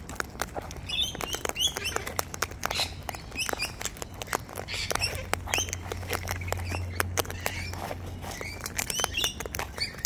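Wild birds pecking and cracking seed: a rapid, irregular scatter of small clicks and crunches, with a few short high chirps now and then.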